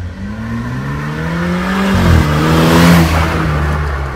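BMW 320i with an aftermarket valved exhaust driving past under acceleration: the engine note climbs in pitch, then drops as the car goes by, loudest about three seconds in with a rush of tyre noise.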